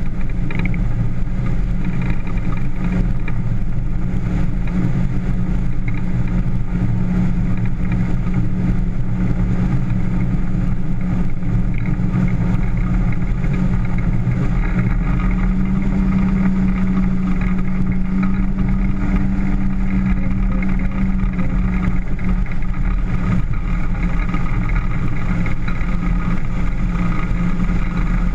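Motorboat engine running steadily under way, a constant drone with rushing noise.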